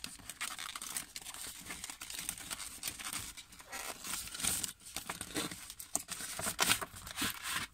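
Cardboard box being opened by hand, with its packaging rustling, crinkling and scraping in irregular bursts that grow louder about halfway and again near the end.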